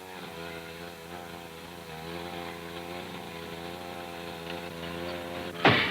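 Gasoline power unit running steadily, driving Hurst hydraulic power jaws (Jaws of Life) on a car seat bracket, its pitch wavering slightly under load. A loud sharp noise near the end.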